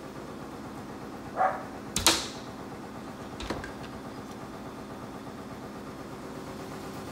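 Two sharp knocks, the louder about two seconds in and a weaker one about a second and a half later, just after a short call, over a steady low machine hum.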